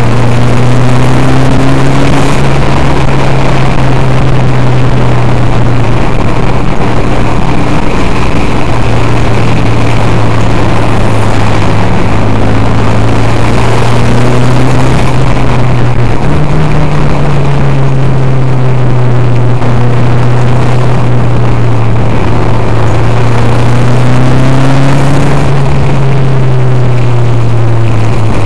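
Racing car's engine heard from inside the cabin, running hard around the circuit as a loud, steady drone. Its pitch shifts only a little, stepping up about halfway through and rising then falling again near the end.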